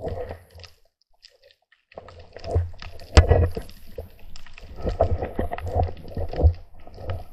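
Water sloshing and gurgling around the camera, with irregular knocks and bumps as the spearfisher handles the catch. There is a loud knock about three seconds in, and it drops almost silent for about a second near the start.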